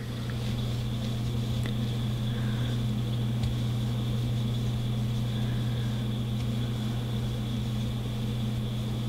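A steady low machine hum with a faint high steady tone above it, unchanging throughout.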